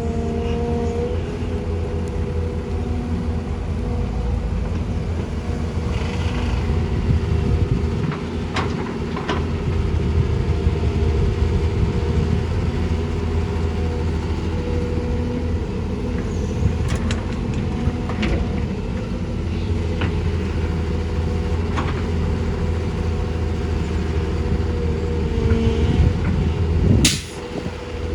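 Heavy diesel engines of an excavator and dump trucks running steadily, with scattered sharp knocks and clanks. A loud sharp noise comes just before the end, after which the engine noise briefly drops.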